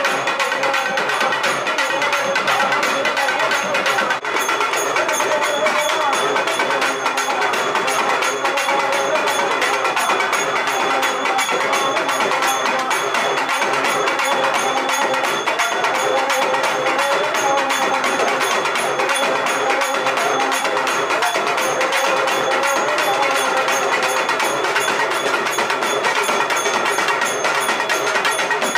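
Music with fast, steady percussion and a melody over it.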